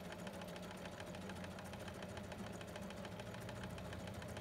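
Janome domestic sewing machine running steadily while stitching fabric: an even motor hum with the rapid, regular tick of the needle.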